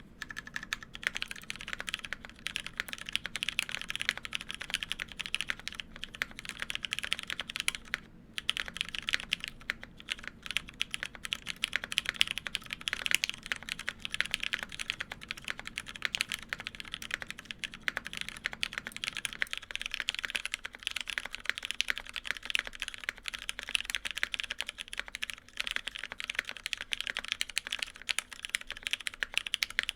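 Continuous fast typing on a Monokei Kei gasket-mounted mechanical keyboard with an aluminium plate, lubed and filmed Hyperglide Cherry MX Brown tactile switches and GMK keycaps: dense, rapid key presses with a brief pause about eight seconds in.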